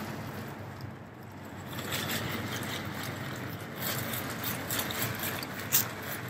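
Nylon fabric of an inflatable air lounger rustling and crinkling as its open end is rolled shut to trap the air, with a few sharper crinkles in the second half.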